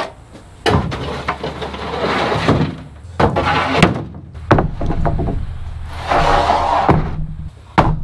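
Pine boards being handled and stacked: several sharp wooden knocks as boards strike one another, with rough scraping as they slide over each other.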